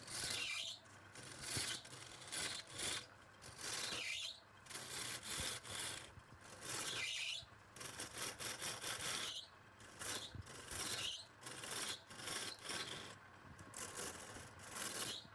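Wood being scraped and rubbed in uneven strokes, roughly one a second, with sharper scraping surges every few seconds, as wood is worked in woodturning.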